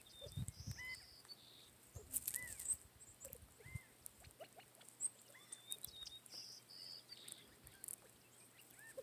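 Faint chirps from feeding quail and sparrows: short, arched notes repeated at irregular intervals, a few higher calls among them, and scattered soft clicks.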